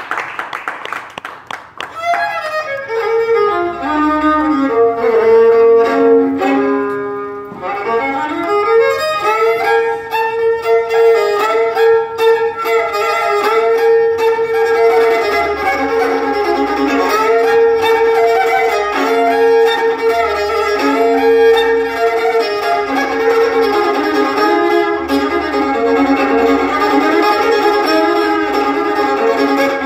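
Solo fiddle played live, recorded on a phone from the audience, coming in about two seconds in with a couple of sliding runs and then settling into a steady tune.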